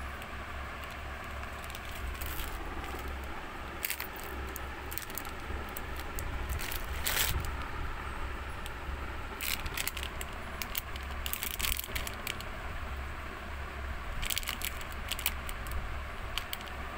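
Shiny plastic wrappers of Cadbury Dairy Milk Lolly lollipops crinkling and crackling in scattered bursts as a hand sorts through a pile of them, over a steady low hum.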